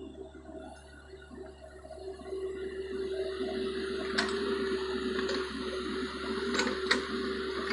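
Kubota U50 mini excavator working: a steady engine hum, with a rushing noise that swells from about two seconds in and several sharp knocks in the second half.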